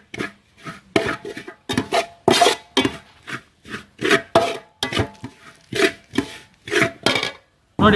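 A long slotted metal spoon scraping and stirring thick onion-tomato masala around a large metal pot, mixing in the spice powders, in quick repeated strokes about two a second.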